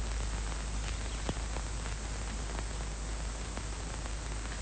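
Steady hiss and low hum of an old 1980s television recording's soundtrack, with a few faint ticks.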